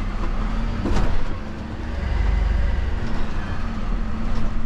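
Bin lorry running and driving slowly, heard from inside the cab: a steady low engine rumble with a steady hum, and one brief knock about a second in.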